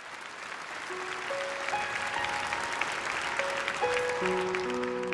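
Audience applause, with a keyboard playing the song's introduction over it. Single held notes enter about a second in and build into sustained chords near the end, as the applause dies down.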